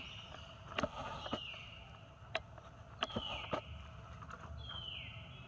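Four high-pitched calls, each a short falling note, repeating about every second and a half, with a few sharp clicks in between.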